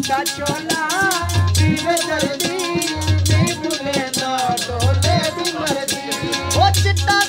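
Punjabi folk music: a chimta's iron jingles clash in a fast, steady rhythm over a harmonium, with a wavering melody line and a deep beat about every two seconds.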